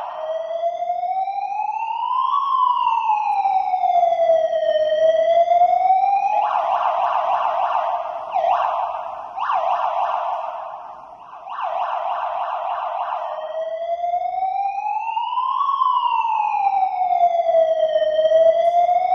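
Qlight electronic emergency-vehicle siren sounding a slow wail, the pitch rising and falling over about two and a half seconds each way. In the middle it switches for several seconds to a rapid warbling tone with a few short breaks, then goes back to the slow wail.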